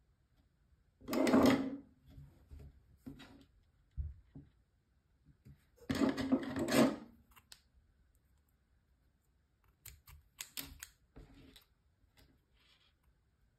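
Handling noise of a fishing hook rig being worked by hand on a cutting mat: two loud rustling brushes, about a second in and about six seconds in, with light knocks between. Near the end comes a quick run of sharp clicks as scissors snip the line.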